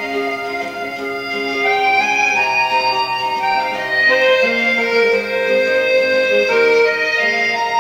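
Instrumental title music: a slow melody of held, overlapping notes.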